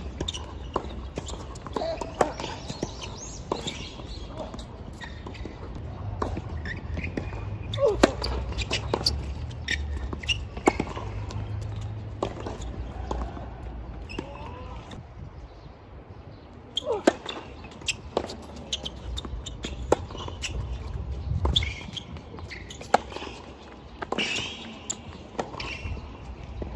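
Tennis play: irregular sharp racket strikes and ball bounces on the court.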